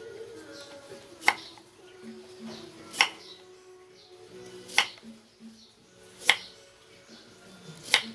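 Kitchen knife slicing through radish onto a cutting board: five sharp chops, one about every second and a half, over soft background music.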